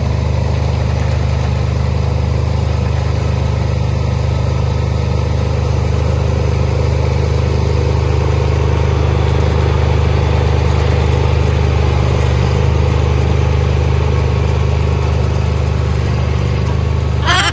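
Kubota combine harvester's diesel engine running steadily with a low, even drone.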